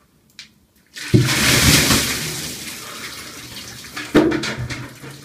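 A bucket of water dumped over a person's head: a sudden loud splash about a second in, then water pouring and splashing down and slowly fading. A second, shorter burst of sound comes about four seconds in.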